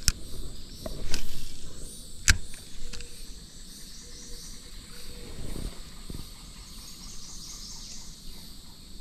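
Fishing rod and spinning reel being handled: three short clicks and knocks in the first few seconds, the sharpest about two seconds in, then only a faint, steady outdoor hiss.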